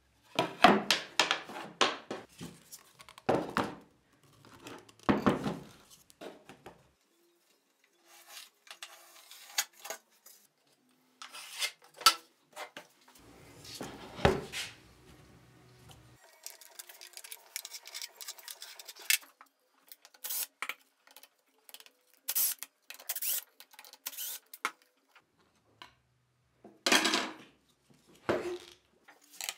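Handling noise of a plunge router on a sheet of plywood: metal and plastic parts clatter, knock and rub against the wood in scattered bursts, with the motor not running.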